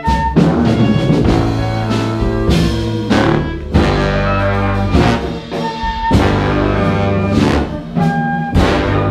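Live jazz big band playing: brass and saxophones in sustained chords over a sousaphone bass line and drums, punctuated by repeated accented hits.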